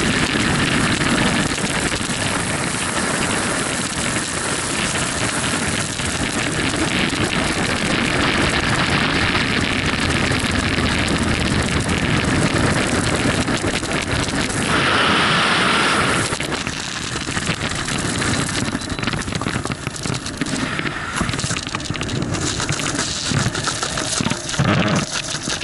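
Freefall wind noise rushing steadily over a helmet camera's microphone. About fifteen seconds in the sound shifts and drops as the parachute deploys, giving way to quieter, uneven fluttering of the open canopy's fabric and lines.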